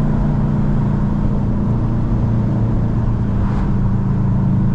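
Car engine droning steadily at a constant speed, without revving, with road noise.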